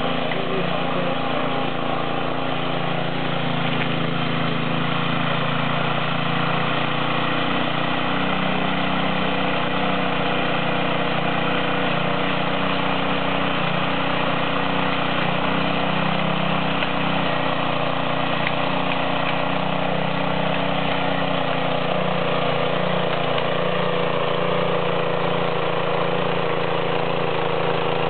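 Small air-cooled engine of a walk-behind rotary tiller running steadily under load as its tines churn dry soil.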